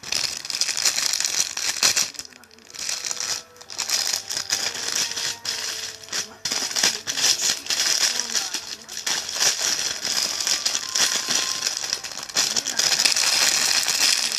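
Plastic packaging crinkling and rattling as it is handled, in bursts with a few short pauses.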